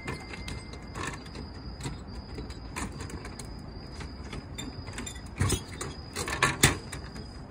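Plastic flap of a drink vending machine's collection bin being pushed and rattled by hand, creaking and clicking, with a few louder knocks a little over five seconds in and again near the end.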